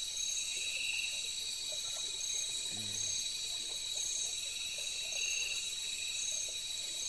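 Night chorus of crickets and other insects: a steady high-pitched trilling, with a short chirp repeating about once a second and a lower pulsing trill heard twice.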